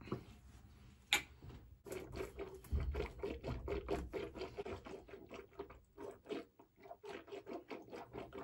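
A mouthful of pulling oil swished through the teeth with the lips closed: rapid wet squishing and sloshing, several strokes a second, starting about two seconds in. A single sharp click comes about a second in.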